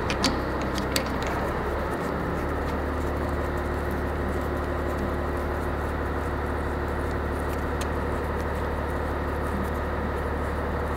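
A steady low hum throughout, with a few light metallic clicks in the first second and one more about eight seconds in, from steel hydraulic hose fittings being handled and set against the ports of a hydraulic control valve block.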